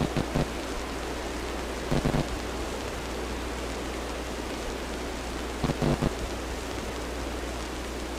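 TV-static hiss over a steady low hum, used as a sound effect, broken three times by short stuttering glitch buzzes: at the start, about two seconds in, and just before six seconds in.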